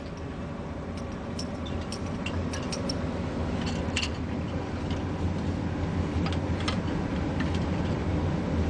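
Water boiling in a glass beaker on a hot plate: a steady low rumble with scattered small ticks and pops, growing slightly louder.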